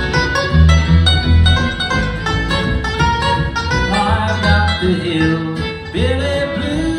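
Live bluegrass band playing an instrumental passage: banjo, acoustic guitar, mandolin and fiddle over upright bass, with sliding notes coming in about four seconds in.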